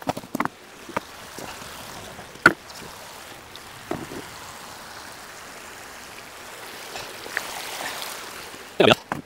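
Boots crunching over loose river stones and stones knocking together as they are picked up, over a small stream running steadily. A sharp knock comes about two and a half seconds in, and a louder clatter of stones near the end.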